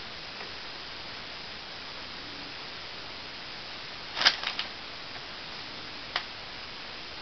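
Steady hiss, with a quick run of three short, sharp sounds about four seconds in and a single one near the end.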